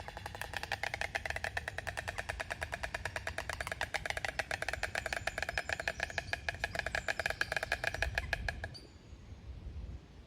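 White stork clattering its bill: a long, rapid, even run of wooden knocks that quickens a little and stops abruptly near the end.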